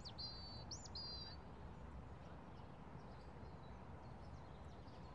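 A small bird singing briefly: a few quick high chirps and two short high trills in the first second and a half, over faint steady outdoor ambience.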